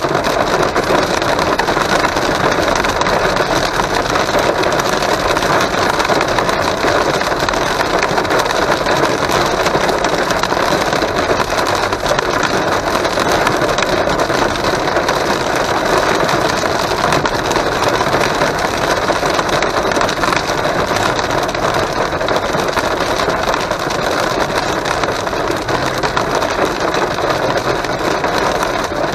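Hail and heavy rain drumming on a car's roof and windshield, heard from inside the cabin: a loud, dense, steady clatter of countless small hits.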